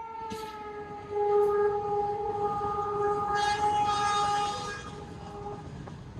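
Train horn blowing one long, steady note, its pitch dipping slightly at the start, louder from about a second in and stopping near the end, over the low rumble of the train.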